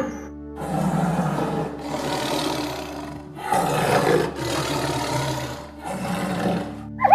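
A large wild animal roaring: about five long, rough roars in a row with short breaks between them, over a steady low hum.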